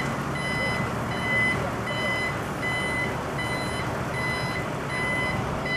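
Heavy-haulage lorry's warning beeper sounding a steady series of high beeps, about three every two seconds, over the low rumble of its diesel engine as it slowly moves the load.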